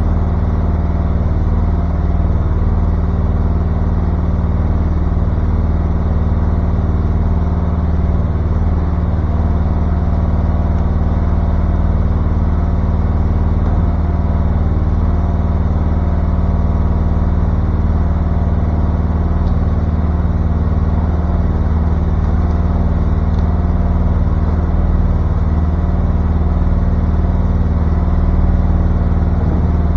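Small air-cooled engine of a VC13C mini excavator idling steadily while it warms up after a cold start on choke.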